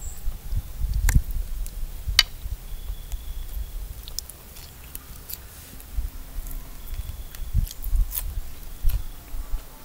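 A man chewing and biting into pan-fried whole crappie, close to the microphone, with scattered sharp clicks.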